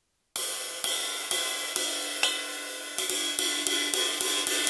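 22-inch vintage Paiste Formula 602 cymbal fitted with steel split rivets, struck with a wooden drumstick in a ride pattern, giving the rivets' sizzle over the ringing wash. It starts about a third of a second in at about two strokes a second and gets quicker from about three seconds in.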